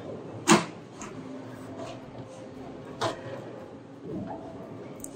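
Bowling-alley sounds: sharp hard knocks of bowling balls, a loud one about half a second in and a smaller one around three seconds, over the steady low background hum of the alley.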